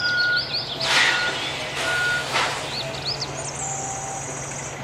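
Car-carrier truck's reversing alarm giving repeated steady beeps over its engine running. Short bursts of hiss come about one and two seconds in, and birds chirp faintly.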